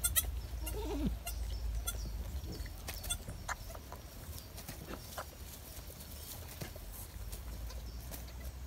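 A newborn Boer goat kid gives one short, faint bleat about a second in, followed by scattered small clicks and rustles in the straw bedding as the kids move and the doe licks them, over a low steady rumble.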